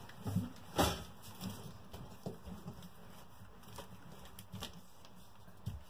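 Light scattered taps and clicks of tile being handled and pressed into place on the wall, with one sharper knock about a second in.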